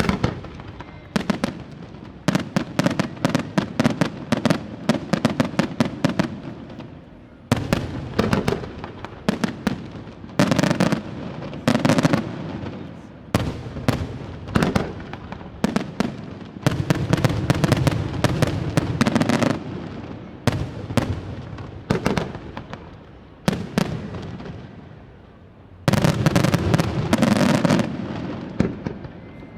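Aerial fireworks display: rapid volleys of shell bursts and crackling bangs in dense clusters, each lasting several seconds, with brief lulls in between.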